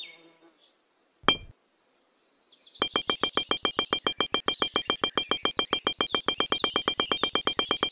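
A single electronic blip about a second in, then from about three seconds in a fast, even run of identical high electronic blips, about eight a second. It is a sound effect marking each miniature brick popping into place in stop-motion.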